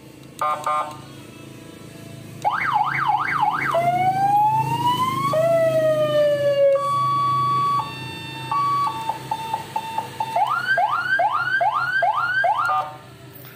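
A 12-volt, 100-watt seven-tone electronic car siren, its loudspeaker horn under the closed hood, is switched through its tones. There are two short horn blips, then a fast up-and-down yelp, a slow rising and falling wail, steady alternating high-low tones and a run of quick rising chirps, stopping near the end. It is still loud with the hood shut.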